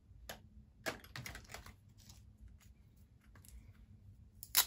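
Light clicks and taps of a loose powder sample and makeup brush being handled, with one sharper, louder click near the end.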